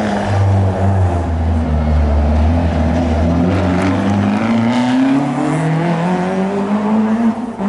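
Rally car engine running hard under acceleration. It holds a low, steady note for the first few seconds, then its pitch climbs over the next three seconds and drops sharply at a gear change near the end.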